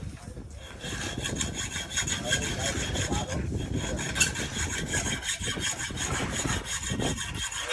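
Rapid, evenly repeated rasping strokes of hand-tool work, like sawing or scraping, going on without a break.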